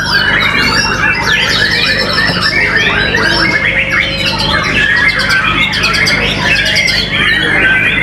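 White-rumped shama (murai batu) singing: a dense, unbroken run of quick, varied whistles and harsh chattering notes, over a steady low hum.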